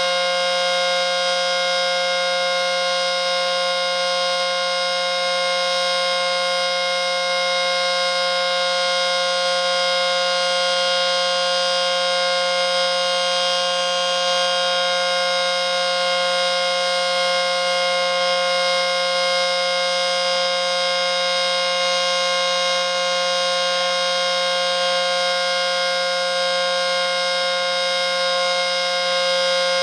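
ACA Screamer S-10 electromechanical outdoor warning siren sounding a steady tone at constant pitch during its monthly test.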